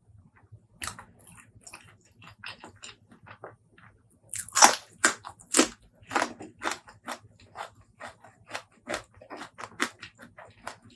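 A person eating close to the microphone: a few faint mouth clicks, then about four seconds in a loud crunchy bite followed by steady crunching chews, about two a second.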